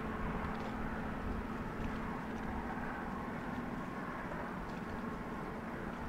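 Steady low drone of a 1000-foot Great Lakes freighter's machinery as the ship passes close by, with a low rumble underneath.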